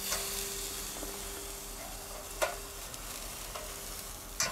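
A T-bone steak sizzling on the hot grate of a charcoal folding grill, just turned over onto its raw side with tongs. A short sharp click sounds about halfway through and another near the end.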